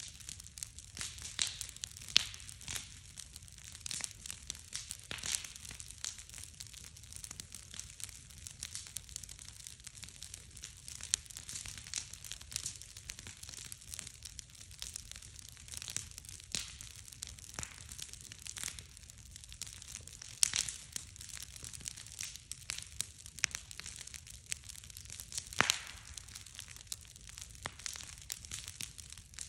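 Wood bonfire crackling and popping, with sharp pops coming irregularly throughout and a few louder cracks among them.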